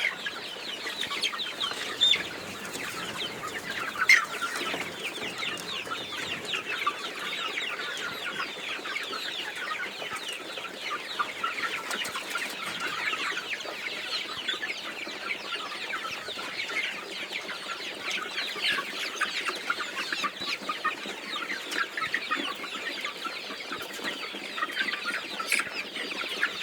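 A flock of Vanaraja chickens calling all at once: a dense, unbroken chatter of many short clucks and peeps overlapping, with a couple of louder single sounds near the start.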